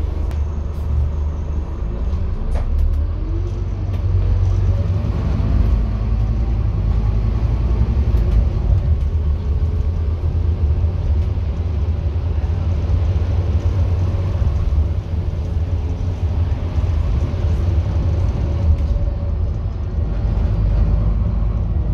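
Scania N230UD double-decker bus's five-cylinder diesel engine and drivetrain heard from inside the passenger saloon, with a low rumble throughout. The engine note rises for the first few seconds as the bus pulls away, then settles into a steady drone with road rumble.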